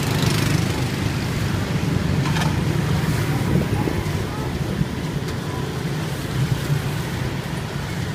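Outdoor street background noise: a steady low rumble, with faint voices in the background.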